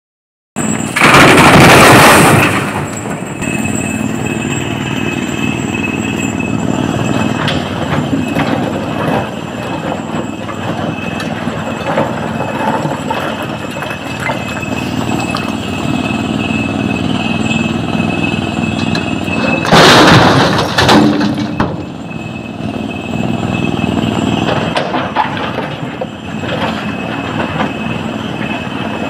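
SANY hydraulic excavator's engine running under load as it digs rock, with a steady high-pitched whine over it. Twice, about a second in and again about two-thirds of the way through, a load of rock crashes from the bucket into the steel body of a dump truck.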